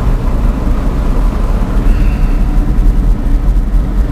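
Car driving, heard from inside the cabin: a loud, steady low rumble of engine and road noise.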